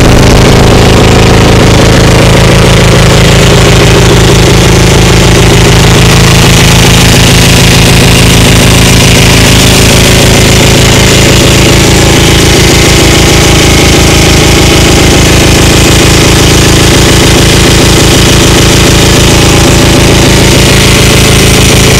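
Suzuki GS 500's air-cooled parallel-twin engine running loud and steady at low revs, close to idle, with even firing pulses and no revving.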